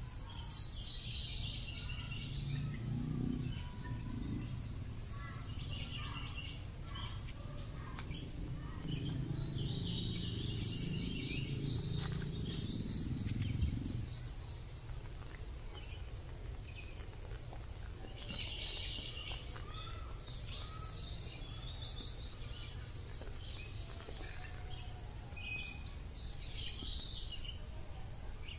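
Birds chirping and calling repeatedly, with a low rumble underneath that stops about halfway through.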